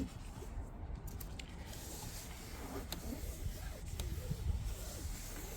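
Cloth towel rubbing and wiping across a car's interior dashboard, a soft scrubbing hiss with a few light clicks and knocks over low handling rumble.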